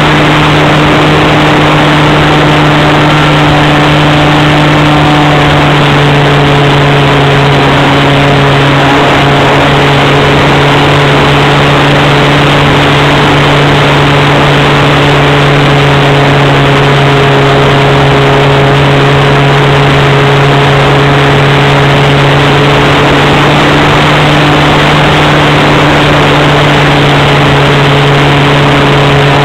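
A Swift 40 model plane's .46 nitro engine running flat out at a steady high pitch, very loud, heard from a camera on the wing with a dense rush of noise over it.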